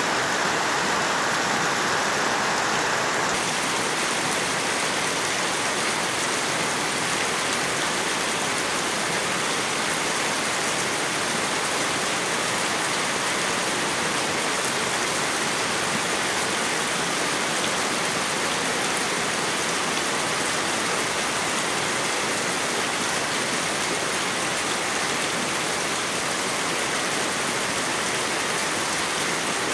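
Heavy rain falling steadily. For the first three seconds or so, a stream of rainwater splashes onto stones and a puddle. After that comes the even wash of the downpour on roofs and ground.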